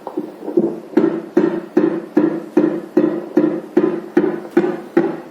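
Fetal Doppler loudspeaker playing a simulated fetal heartbeat at the 150 beats-per-minute test point: even, pulsing heartbeat sounds about two and a half a second.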